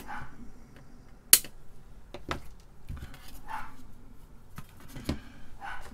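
Flush cutters snipping the leads of a freshly soldered capacitor with one sharp click about a second in, then lighter clicks and rustles as the printed circuit board is handled and turned over.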